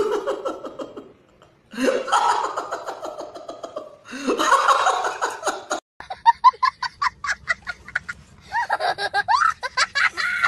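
A man laughing heartily in long stretches, then, after a cut about six seconds in, a young boy's high-pitched laughter in rapid repeated bursts, several a second, growing fuller near the end.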